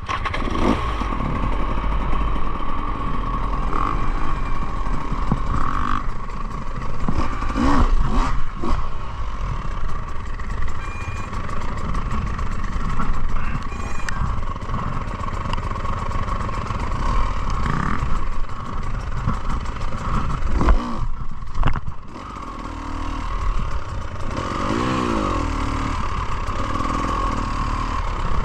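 Enduro motorcycle being ridden, its engine running continuously with clatter and knocks, the revs rising and falling a few times near the end, and a brief drop in level a little past twenty seconds in.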